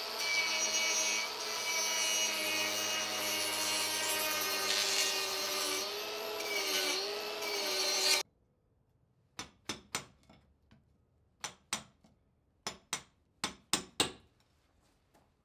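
Cordless angle grinder running against wood as it shapes the rabbet in a wooden boat's stem. Its motor pitch sags briefly as it bites, then it cuts off suddenly about eight seconds in. About a dozen sharp taps follow in small groups, a mallet driving a chisel to pare the rabbet.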